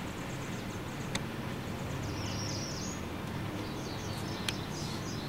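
Outdoor background noise with a steady low hum and faint bird chirps, broken by two sharp little clicks, one about a second in and one near the end.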